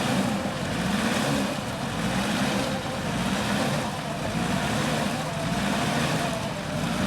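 Off-road 4x4's engine running and revving up and down, under a steady rushing noise.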